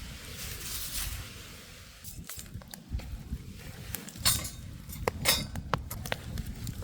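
A few sharp clinks, loudest about four and five seconds in, over a steady low rumble.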